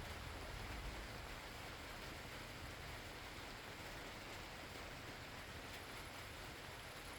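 Steady rain falling, a faint even hiss, with a low rumble that fades in the first second.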